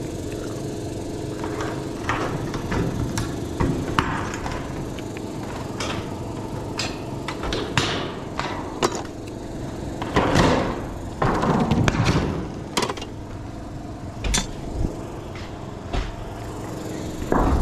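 Standing seam metal roofing panel being worked by hand with tin snips: irregular sharp clicks and metal clanks, with louder bursts of the sheet being handled a little after ten seconds and near twelve seconds in.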